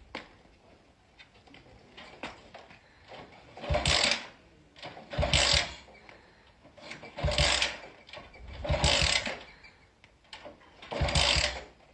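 Honda motorcycle engine being kick-started five times, each kick turning it over with a short chugging burst that dies away without catching: the engine won't start.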